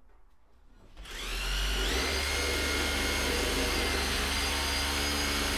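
Electric drill starting up about a second in, its motor rising in pitch and then running steadily, drilling the first anchor-bolt hole into the concrete workshop floor.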